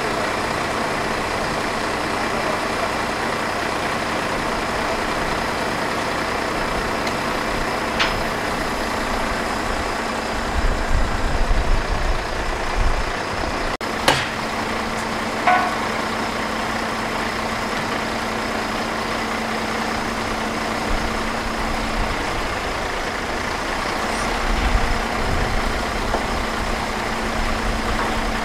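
Truck engine running steadily, with a few sharp metallic knocks and short spells of deeper rumble.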